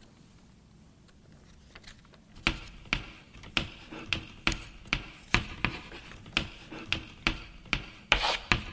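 A quiet pause, then a series of sharp taps starting about two and a half seconds in, roughly two to three a second and uneven, with a short scraping burst near the end.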